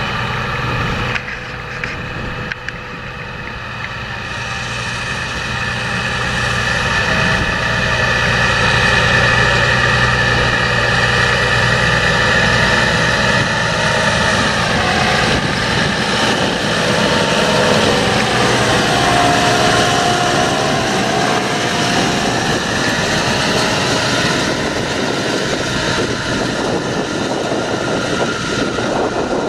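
John Deere 7230R tractor's six-cylinder diesel engine running steadily under load while pulling a seed drill. It grows louder over the first several seconds as the tractor approaches, and its note dips in pitch about halfway through as it passes.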